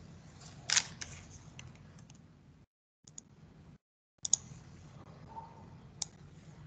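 Scattered clicks at a computer's mouse and keyboard, the loudest just under a second in, over a faint low hum. The sound cuts out to dead silence twice in between.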